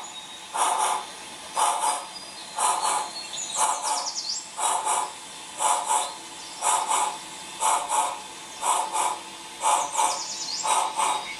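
Model steam locomotive No. 50 chuffing slowly and steadily, about one doubled chuff a second, as it pulls its train. Two brief falling chirps, about 4 s and 10 s in.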